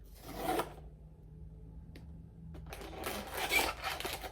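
Blind-box toy packaging being torn open and rustled by hand: a short burst of rustling and tearing at the start, then a longer one from about two and a half seconds in.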